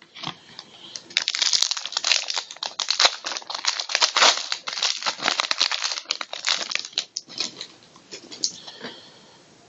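Plastic wrapper of a hockey card pack crinkling and tearing as the pack is opened: a dense run of crackles that thins out near the end.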